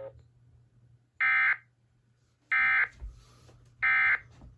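Emergency Alert System end-of-message code: three short, identical bursts of SAME digital data tones, evenly spaced about 1.3 seconds apart, signalling the end of the alert message.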